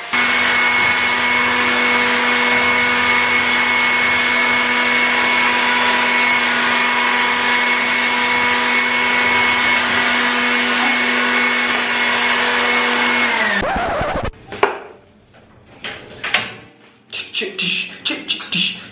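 Electric blender running steadily with a constant high whine, grinding garlic and shallots. About three-quarters of the way through it is switched off and the motor winds down, followed by a few knocks.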